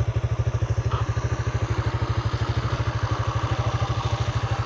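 Motoland ST250 enduro motorcycle's air-cooled single-cylinder four-stroke engine idling steadily, with an even exhaust beat.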